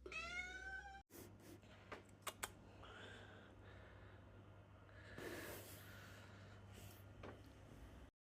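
A domestic cat meows once, a short call rising in pitch and then holding, for about a second. A few faint clicks and soft rustling follow, barely above silence.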